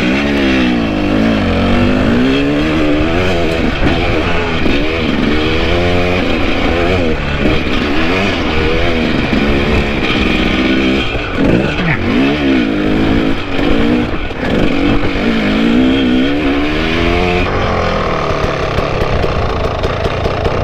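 Two-stroke enduro motorcycle engine revving up and down again and again under throttle as the bike climbs a steep loose slope. About 17 seconds in the sound cuts to a steadier engine drone.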